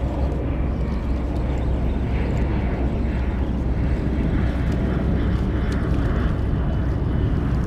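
Steady low rumbling noise with an even hiss above it and no distinct events.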